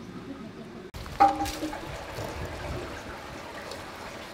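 A sharp metallic clang from a metal stew pot about a second in, ringing briefly. It is followed by wet squelching and sloshing as a whole raw duck is pressed and turned in its sauce marinade in the pot.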